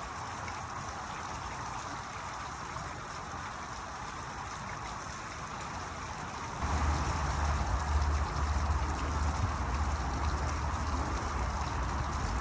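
Water splashing and trickling steadily from a fountain. About six and a half seconds in, a low rumble joins it and the sound grows louder.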